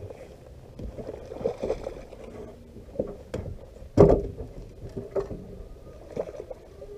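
Irregular knocks and thumps on a fishing boat as a hooked bass is played to the landing net, with the loudest thump about four seconds in.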